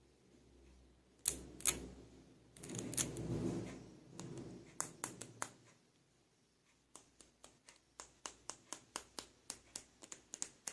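Plastic toy figures being handled: two sharp clicks, a rustle, then a run of quick, evenly spaced clicks, about four a second, in the second half.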